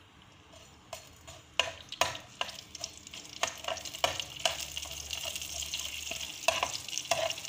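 Cumin and coriander seeds sizzling in a little hot oil in a pan, the sizzle building after the first couple of seconds. Sharp clicks and scrapes come through it as a spoon stirs the seeds against the pan.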